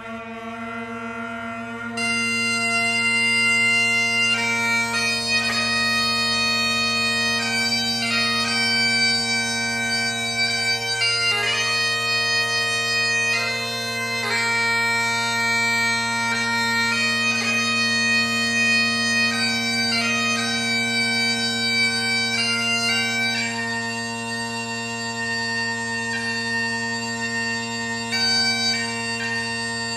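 Bagpipes playing: steady low drones with a chanter melody that comes in about two seconds in.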